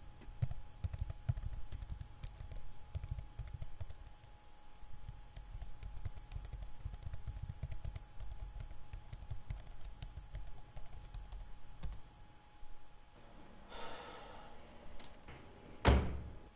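Typing on a computer keyboard: a quick, uneven run of key clicks for about twelve seconds that then stops. Near the end comes a soft breathy rush, then a single loud thump.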